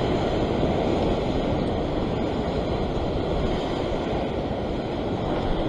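Ocean surf washing over a rock ledge: a steady rush of foaming water with no distinct breaks.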